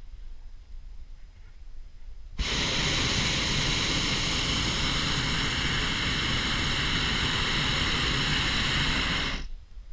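Hot air balloon's propane burner firing: a loud, steady rushing blast that starts abruptly about two and a half seconds in and shuts off about seven seconds later.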